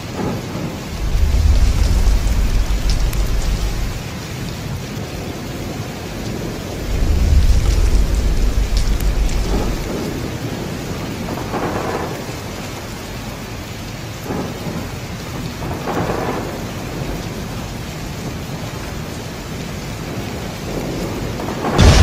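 Steady rain with rolling thunder: two long, deep rumbles, one about a second in and another around seven seconds in, and softer rolls later; a loud, deep boom breaks in at the very end.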